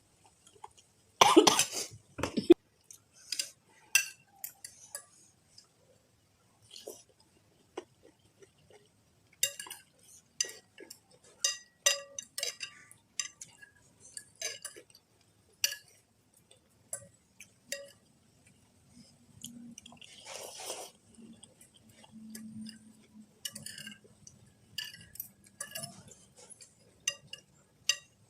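Eating from a bowl of noodle soup: a spoon and fork clinking against the bowl again and again, with chewing between the clinks. The loudest clatter comes about a second in.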